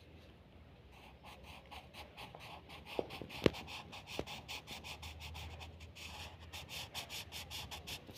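Blue colour pencil shading on paper in quick back-and-forth strokes, about four or five a second, starting about a second in. A few sharp taps stand out around the middle.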